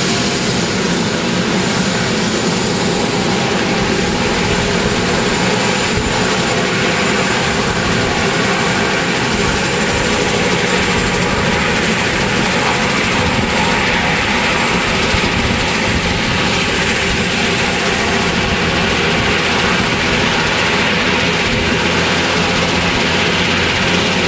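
Sikorsky S-76 helicopter's twin turboshaft engines running on the ground with the main and tail rotors turning, a steady loud rush with a high turbine whine on top.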